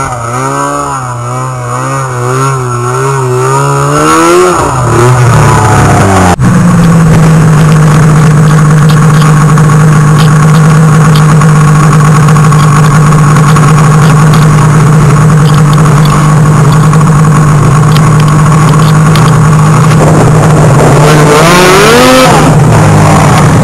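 Snowmobile engines. First a sled's engine rises and falls in pitch as it is ridden. After a sudden cut about six seconds in, an engine holds a long, steady high note, and near the end another sled's engine revs up and down.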